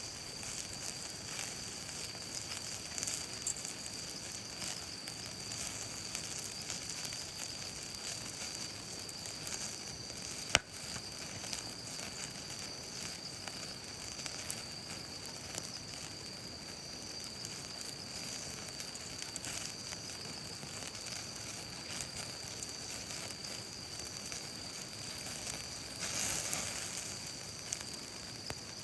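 Sauce-marinated beef skirt steak sizzling on a grill over a wood fire, with light crackling throughout and one sharp click about ten seconds in.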